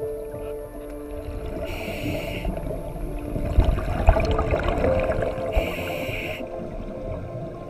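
Scuba regulator breathing heard underwater: two hissing inhalations through the demand valve, about four seconds apart, with the low bubbling rumble of the exhaled air between them. Faint steady tones sit underneath.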